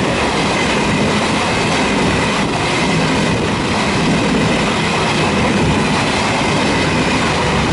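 ÖBB Railjet passenger coaches running past close by: a steady, loud rush and rumble of wheels on the rails, with a faint high whine over it.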